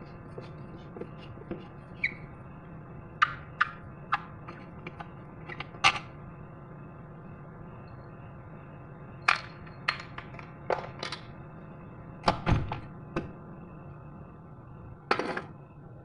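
Woodworking knocks and taps: irregular sharp strikes and thunks on wood, a few close together, with the loudest thump about twelve seconds in, over a steady background hum.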